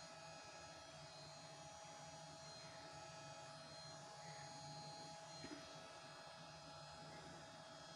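Near silence: a faint steady electrical hum, with one small tick about five and a half seconds in.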